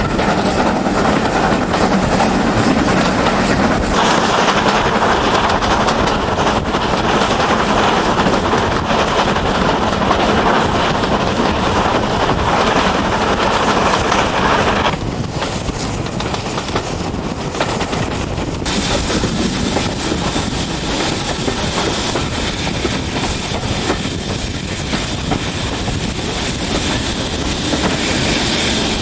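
Heritage railway train running along the track, a steady rumble with the clatter of wheels on rails. The sound changes abruptly about halfway through, dropping a little, and shifts again a few seconds later.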